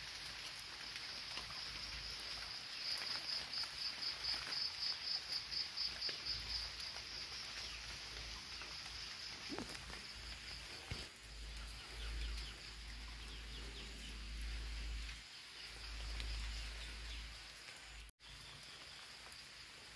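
Insects chirping: a steady high trill that pulses at about four beats a second for a few seconds near the start, then carries on more evenly. A low rumble comes and goes in the second half.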